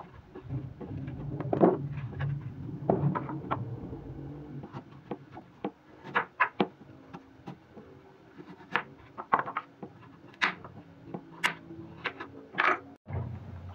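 Kitchen knife cutting peeled arrowroot (taro) on a wooden chopping board: a string of irregular sharp taps as the blade goes through the root and strikes the board.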